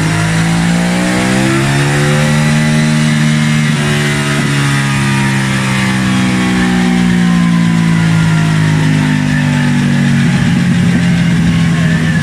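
Aprilia Caponord 1200's V-twin engine, on its stock exhaust, running under load on a dyno. The pitch rises over the first couple of seconds and then holds fairly steady. It turns rougher near the end.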